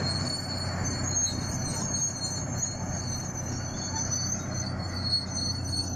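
Tracked bulldozer's diesel engine running steadily at a distance while it pushes sand, a low even hum with a steady high-pitched whine above it.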